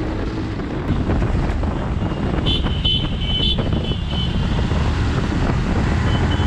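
Steady low rumble of road vehicles, with wind on the microphone. A few short high-pitched beeps sound about two and a half to three and a half seconds in.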